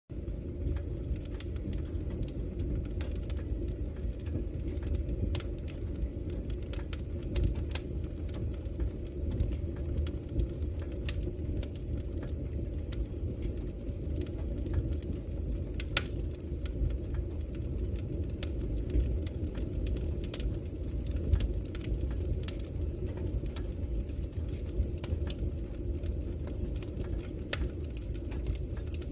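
Campfire burning: a steady low rumble of flames with scattered sharp crackles and pops, one louder pop about halfway through.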